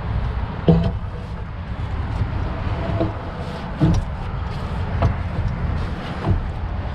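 Wooden boards knocking and clunking as they are handled and stacked, about five short knocks over a steady low rumble.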